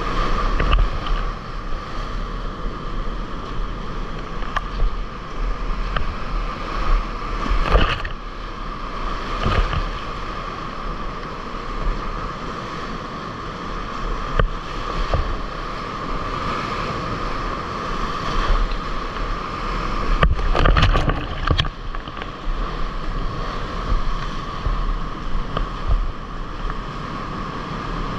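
Rushing whitewater of a mountain river rapid heard from a kayak, with wind on the microphone. Sudden splashes break through several times, a cluster of them about three-quarters of the way through.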